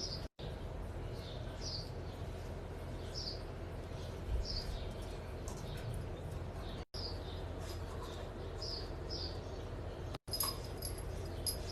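Faint, short high chirps repeating about once a second over a low steady hum, cut by brief dropouts of total silence near the start, about two-thirds through and near the end.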